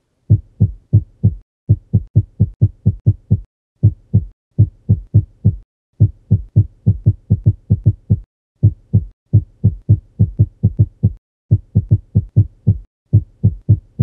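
Heart sounds on auscultation in atrial fibrillation with a fast ventricular rate: the first and second heart sounds come in an out-of-step, irregularly irregular rhythm, with runs of quick beats broken by pauses of varying length.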